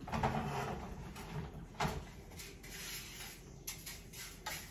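Cookware clatter at a stove: a pan knocks down at the start, with a sharper knock about two seconds in. Near the end a spatula starts scraping and tapping as raw rice is stirred in a dry frying pan to toast it.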